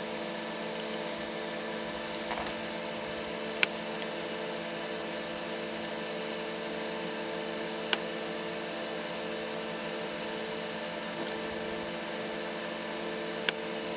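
Steady hum of a running motor, holding several even tones over a light hiss, with a few short, sharp clicks scattered through it.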